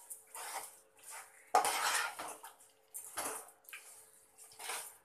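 Metal ladle stirring chicken masala in a large aluminium pot, scraping and clanking against the pot's sides and bottom in a series of irregular strokes, the loudest about one and a half seconds in.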